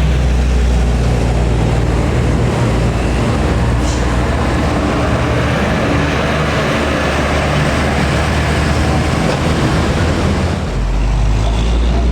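Diesel bus engine running as a bus passes close by. Its noise swells through the middle and eases off, and a deeper engine drone comes in near the end.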